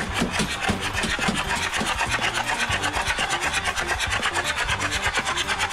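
Fast, even rasping pulse, several beats a second, from an Audi A6's engine bay as a jet of water spurts up out of the engine.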